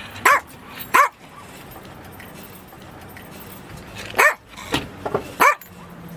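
Small dog barking in short, high-pitched barks: two near the start, then after a pause of about three seconds a quick run of three or four more.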